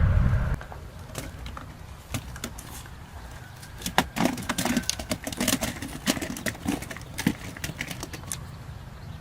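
A loud rushing noise cuts off about half a second in. It is followed by a run of quick, irregular clicks and taps, thickest in the middle.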